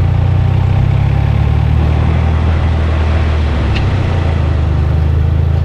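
2014 Subaru WRX on a road test drive: a steady low rumble of engine and road noise with no rattle heard, the underbody splash shields now clipped back in place.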